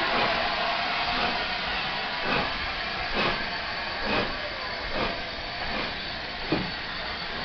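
Steady steam hiss from an LNER A4 Pacific steam locomotive, with soft regular thumps about once a second.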